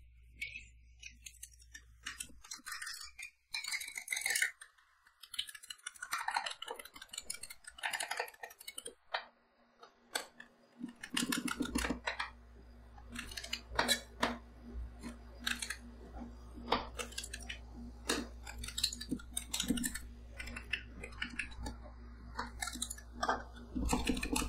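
Two metal spatulas chopping and scraping whipped cream and blueberries on the steel plate of a rolled-ice-cream cold plate: irregular taps and scrapes of metal on metal. A steady low hum joins in about halfway.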